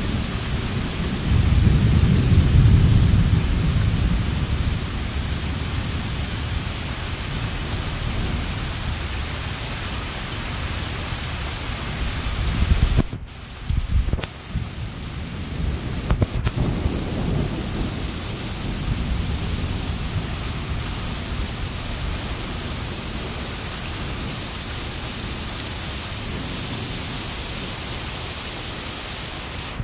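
Steady rain with rolling thunder, the rumble loudest about two seconds in and building again around twelve seconds in. Just after that the sound drops out briefly a few times.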